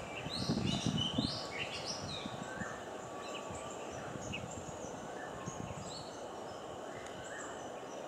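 Oriental magpie-robin singing: a quick run of whistled notes in the first second or so, then short notes scattered through the rest, over a steady low background rumble.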